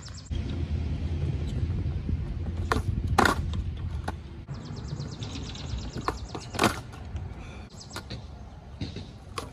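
Skateboard wheels rolling on concrete with a steady rumble for the first four seconds or so, then several sharp clacks of the wooden deck striking the ground during heelflip attempts, the loudest about three and six and a half seconds in.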